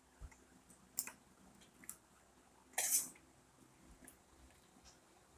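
Quiet eating sounds from a person biting and chewing boiled okra: a few soft clicks and smacks, with one louder, hissy bite or scrape about three seconds in.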